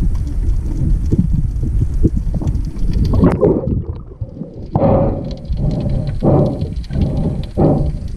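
Water rushing and bubbling around a diver's camera, low and rumbling, while a spearfisher handles a speared fish underwater. About three seconds in the camera breaks the surface, and from then on come regular rasping puffs, roughly one every two-thirds of a second.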